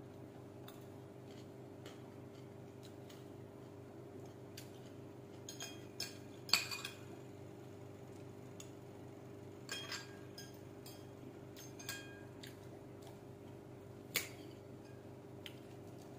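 Metal fork and spoon clinking against a ceramic plate during eating, in scattered single taps, the loudest about six and a half seconds in. A steady low hum runs underneath.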